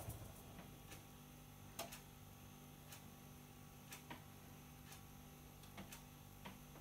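Front-loading washing machine running quietly: a low steady hum with faint, sharp clicks at uneven intervals, roughly one a second, as the drum turns.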